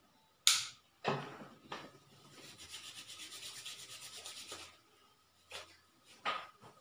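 Hands rubbing together steadily for about two and a half seconds, as when working in liquid from a small bottle, after a couple of sharp clicks in the first second or so. A few faint short taps come near the end.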